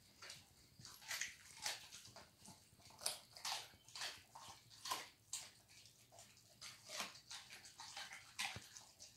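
German Shepherd dog chewing raw food off the floor: irregular wet chewing and smacking, with one or two sharp chews a second.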